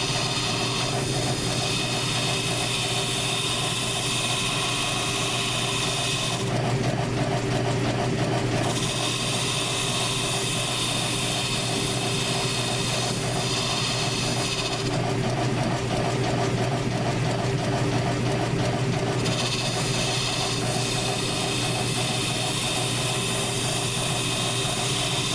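South Bend lathe running steadily with a low motor hum and a rhythmic drive sound while the tool turns down a Razor scooter wheel. A higher cutting noise drops out about six seconds in and again around fifteen seconds, returning each time a few seconds later.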